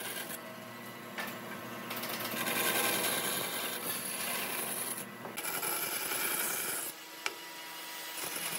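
Bandsaw running and cutting through a small block of wood, a steady rasping saw noise that is fullest in the middle. One sharp click near the end.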